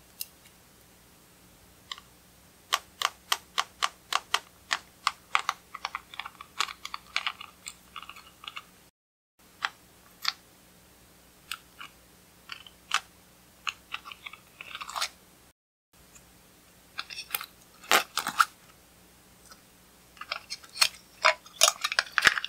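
Sharp plastic clicks and crackles from small makeup containers and a clear plastic star-shaped mould being handled, twisted and pressed: first a run of single clicks about two a second, then denser crackling bursts.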